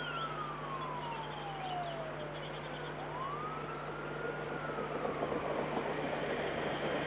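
A siren wailing, its pitch rising and then slowly falling in a long sweep that repeats about every four seconds. Small birds chirp near the start, and a broader rumbling noise swells toward the end.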